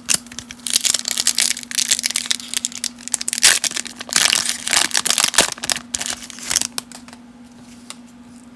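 Foil wrapper of a 1991 Studio baseball card pack being torn and peeled open by hand: a dense run of crinkling and tearing with sharp crackles, quieting about seven seconds in as the cards come free.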